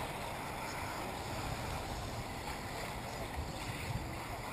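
Wind buffeting the microphone with a low, uneven rumble over a steady background hiss.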